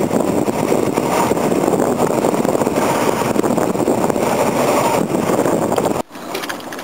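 Steady, loud rushing of wind buffeting the microphone over choppy water on a small boat, with no clear engine note. It drops off suddenly about six seconds in.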